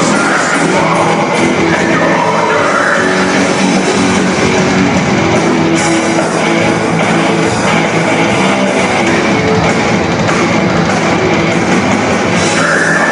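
Death metal band playing live at full volume: heavy guitars and drums in a dense, unbroken wall of sound.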